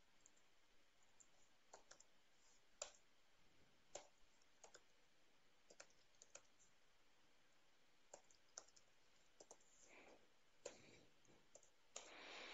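Faint, irregular computer keyboard key clicks from typing, a few single keystrokes spread out over near-silent room tone, with a soft rush of noise near the end.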